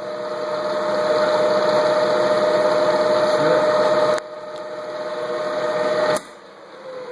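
Bridgeport milling machine's 1 hp spindle motor, fed through a static phase converter, running in reverse with a steady whine as it comes up to speed. The sound drops off sharply about four seconds in and builds again. Near the end it is switched off and begins to coast down with a falling whine.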